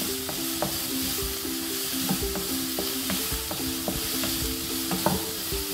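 Chopped vegetables sizzling in hot oil in a nonstick wok-style pan, being sautéed until just wilted, while a wooden spatula stirs and scrapes them with short taps and scrapes against the pan. A low background tune plays underneath.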